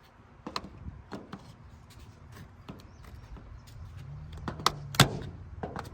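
Scattered clicks and knocks from handling a plastic windshield molding and its clips, the loudest a sharp knock about five seconds in. A low steady hum comes in about four seconds in.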